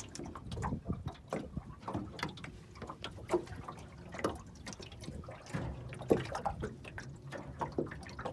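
Water lapping and trickling against the hull of a small boat, with scattered light knocks at irregular moments.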